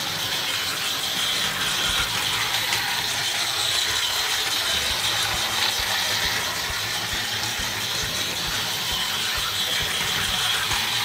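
Plarail toy train running on plastic track: a battery-powered DD51 locomotive pulling an observation car and a boxcar. There is a steady whir of its small motor and gears, with short irregular clicks from the wheels running over the track.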